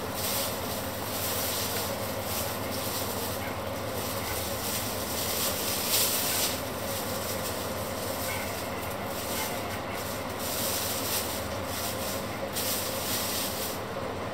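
Plastic bag rustling and crinkling as raw beef is tipped from it and pressed onto onions in a pot, over a steady hiss and low hum.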